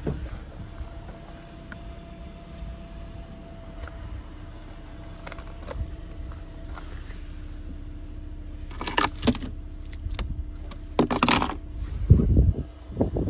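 Handling noise in a car cabin: a steady low rumble with a faint hum underneath, broken by two loud bursts of rattling clatter about nine and eleven seconds in, then a few low bumps near the end.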